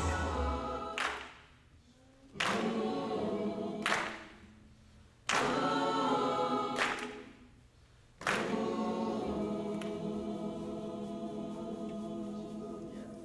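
Gospel choir singing: a string of short chords, each starting sharply and dying away, about one every second and a half, then one long held chord that slowly fades.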